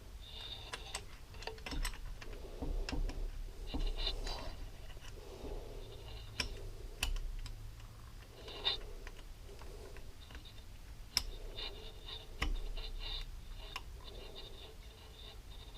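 Small metal engine parts clicking and clinking as they are handled and fitted together by hand, in irregular light taps and scrapes with a few sharper clicks.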